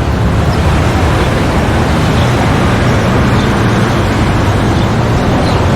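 Street ambience: a steady rumble of passing road traffic with a dense hiss of engine and tyre noise.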